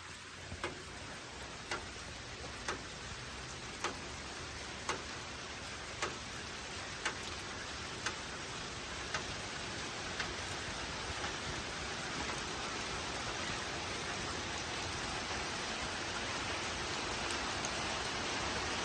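Steady rain drumming on a tin roof, slowly growing louder, with a sharp tick about once a second during the first half, like a regular drip.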